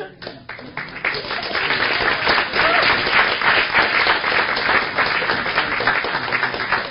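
Audience applauding in a hall: a few scattered claps that swell into full applause about a second in.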